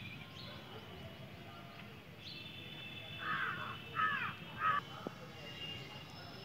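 A bird calling three times in quick succession, each call short, about two-thirds of a second apart, a little past the middle.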